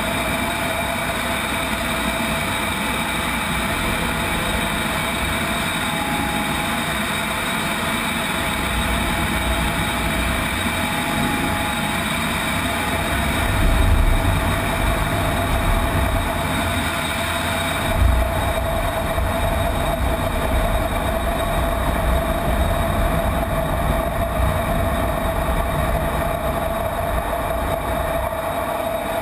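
Inside an F-16 fighter's cockpit in flight: a steady roar of jet engine and rushing air with a few constant whining tones. About halfway through a deeper low rumble sets in, with two brief jolts a few seconds apart, as the jet manoeuvres hard with vapour streaming off the wing.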